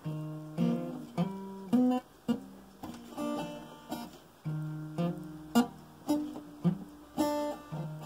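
Acoustic guitar played solo, chords strummed and picked about twice a second, each ringing and fading before the next.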